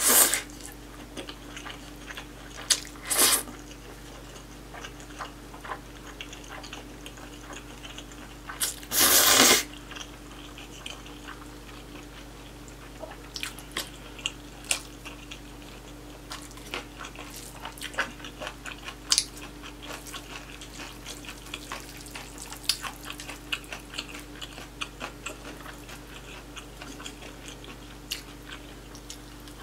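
Close-miked eating of spicy cold noodles and beef brisket: a few loud slurps of noodles, the longest lasting about a second around nine seconds in, then steady chewing with many small wet clicks and smacks.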